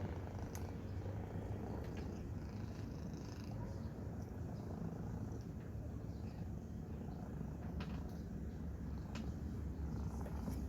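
Domestic cat purring steadily, with a few light clicks.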